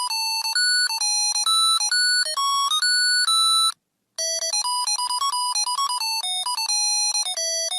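Musical chip of a string of Christmas lights playing a carol tune as a run of thin, buzzy electronic beeping notes, one note at a time, a few notes a second. The tune breaks off for about half a second about halfway through, then carries on.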